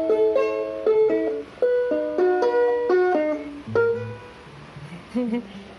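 Ukulele played through a small Joyo JA02 guitar amplifier: a run of plucked notes and chords ringing out, growing softer and sparser after about three and a half seconds.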